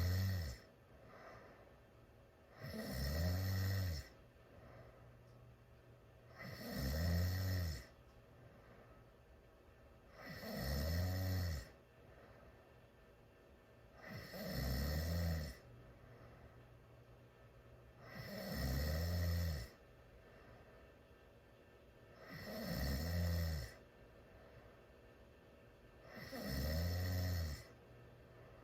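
A teenager snoring loudly through a wide-open mouth, in a steady rhythm of long, rasping snores about every four seconds, with quiet breaths between them.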